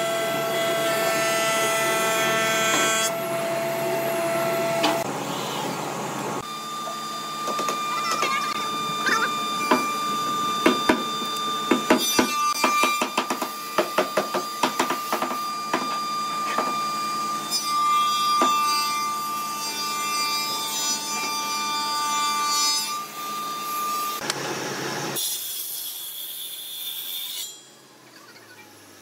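Workshop woodworking machinery: a thickness planer running steadily as it cuts hardwood blocks, then machine hum with a run of sharp knocks and taps in the middle. Near the end a brief hissing noise, after which it drops much quieter.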